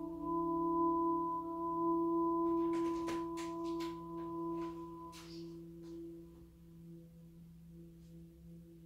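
Slow ambient relaxation music: a chord of steady, held tones that fades over the last few seconds, with a few faint clicks in the middle.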